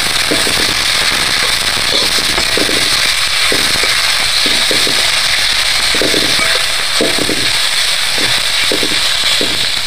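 Sliced onions sizzling steadily in hot oil in a metal kadhai, stirred with a flat metal spatula that scrapes and knocks against the pan about twice a second.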